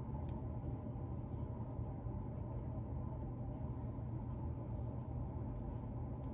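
Fingernails scratching through a beard to loosen dandruff: steady close-up scratching and rubbing, with a few faint clicks.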